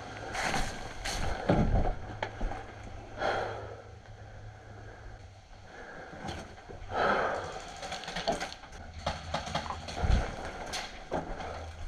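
Scuffing and rustling from a player's movement and gear, in several short bursts, with scattered sharp clicks that cluster toward the end, over a steady low rumble.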